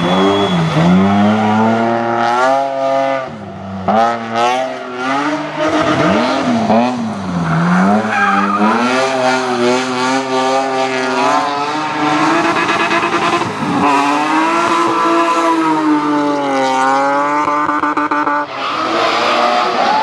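BMW E30 race car's engine revving hard through a hairpin, its pitch sweeping up and down again and again with throttle and gear changes, with tyres squealing as the car slides. Near the end a second car's engine takes over.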